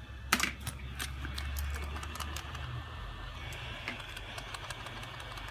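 Hot air rework gun running, a steady low hum with a faint hiss of air, under scattered small clicks and taps of handling on the bench. One sharper click comes about a third of a second in.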